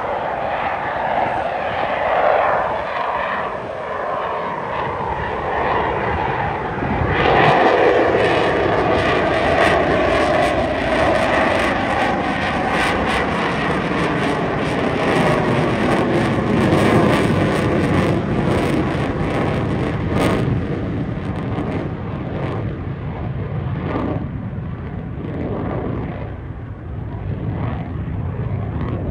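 Jet engine noise of an F/A-18 Super Hornet flying overhead. It swells and grows brighter about seven seconds in, with slowly falling sweeps running through it, then thins out over the last several seconds as the jet draws away.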